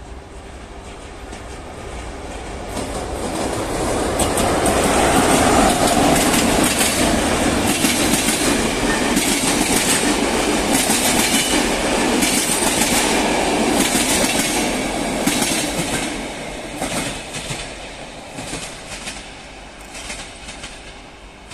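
Fast passenger train passing through a station without stopping. It grows louder over a few seconds, keeps up a steady run of wheels clacking over rail joints, then fades over the last few seconds.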